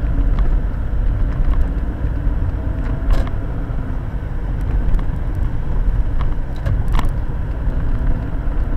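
Steady low rumble of road and engine noise from a car driving, heard from inside the cabin through a dashcam's microphone, with a couple of faint clicks about three and seven seconds in.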